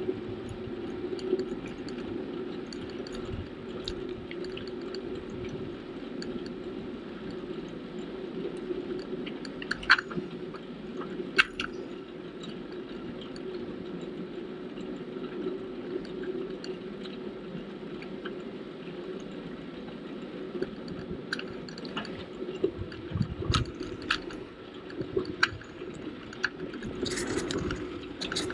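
Bicycle being ridden along a smooth asphalt cycle path: steady tyre and drivetrain noise, with scattered sharp clicks and rattles from the bike.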